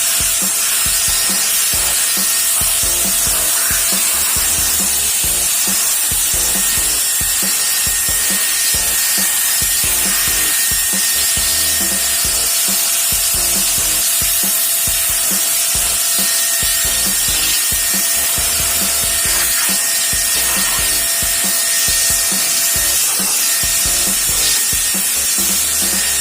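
Sun Joe SPX6001C-XR 40-volt cordless pressure washer running steadily below full power, its water jet spraying with a loud, even hiss.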